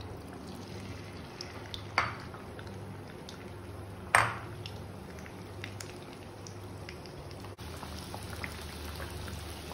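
Hot oil sizzling and crackling steadily around batter-coated bread doughnuts deep-frying in a pan. Two sharp clicks sound about two seconds in and about four seconds in, the second the loudest, over a low steady hum.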